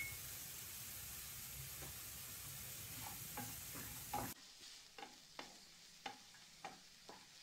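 Wooden spatula stirring and scraping grated gooseberries in a nonstick kadai over a faint sizzle. The spatula strokes come as soft knocks, about two a second, through the second half.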